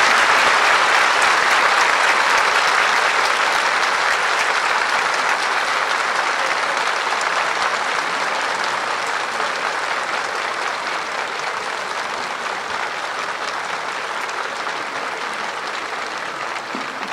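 Crowd applauding with steady, dense clapping that slowly grows quieter.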